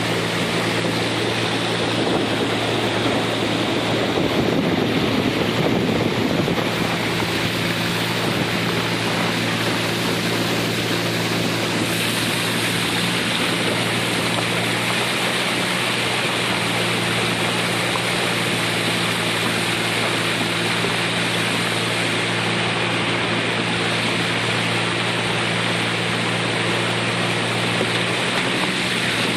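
Boat motor running at a steady speed, with water rushing past the hull. The water noise swells for a few seconds early on, then the motor's hum runs on evenly.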